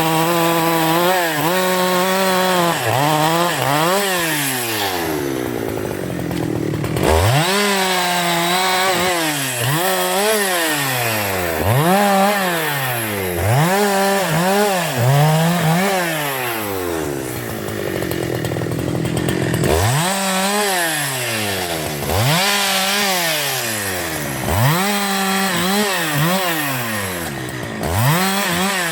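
Husqvarna 372 XP two-stroke chainsaw engine revved again and again, its pitch climbing and dropping about every second or so. Twice the steady engine note gives way to a rougher, noisier stretch.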